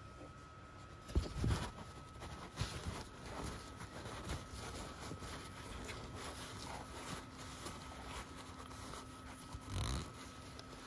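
Shop rag rustling and wiping around an oily engine part, with a few light knocks about a second in.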